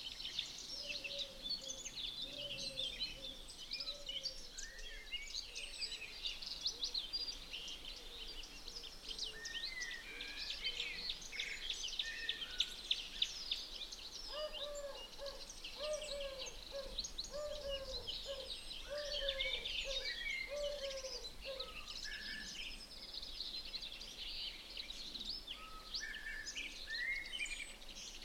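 Wild birds singing and calling together: a dense chorus of high chirps and trills, with a lower bird's call repeated in runs of short notes about two a second, once near the start and again in the middle.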